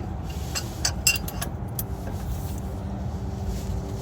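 A few light metallic clicks and clinks of a hand wrench being worked, over a steady low rumble of a running vehicle, with a steady hum joining about halfway through.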